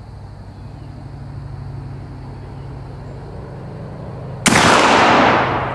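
.54 caliber Thompson Center Hawken muzzleloader firing one black-powder round-ball shot about four and a half seconds in. It is a sudden, loud boom with a long tail that fades over a second or two.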